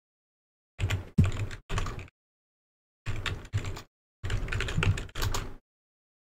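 Computer keyboard being typed on in three short runs of keystrokes, with dead silence between the runs.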